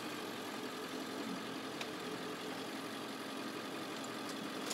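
Van's engine idling steadily.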